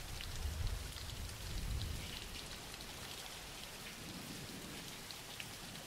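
Steady rain falling, a soft even hiss with scattered patters of drops, a recorded rain background track. A low rumble swells and fades in the first two seconds.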